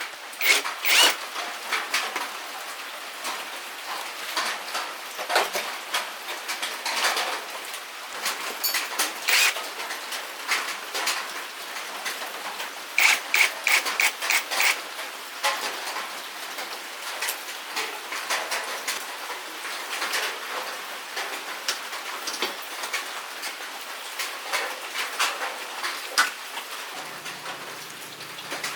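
Hand work on metal parts: a steady run of irregular clicks, taps and scraping, with a quick series of sharp, ringing clicks about halfway through.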